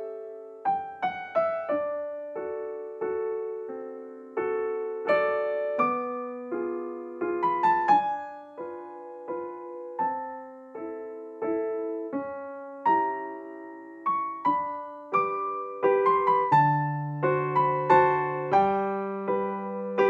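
Background piano music: a gentle melody of struck notes and chords, with lower bass notes coming in near the end.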